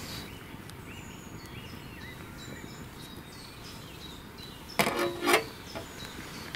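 Woodland birds calling with short repeated high notes over a steady outdoor hiss. About five seconds in come two short, loud metallic clatters, half a second apart, from the steel cooking plate over the wood stove being handled.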